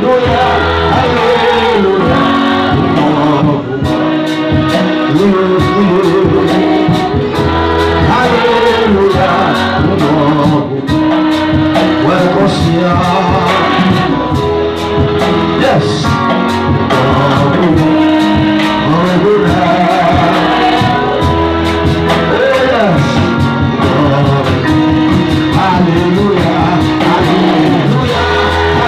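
Gospel song: singing over guitar accompaniment.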